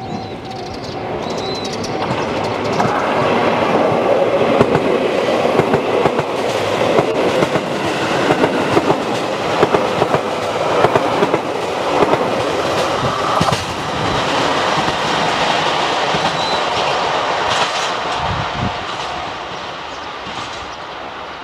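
A JR Hokkaido 721 series and 733 series electric multiple-unit train passing close by, its wheels clicking over the rail joints. The sound builds about two seconds in, stays loud through the middle, and fades slowly near the end as the train pulls away.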